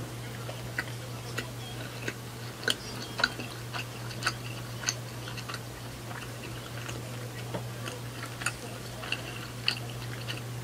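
Close-up chewing of crisp food, with irregular crunchy crackles, a few sharper ones in the middle. A steady low hum runs underneath.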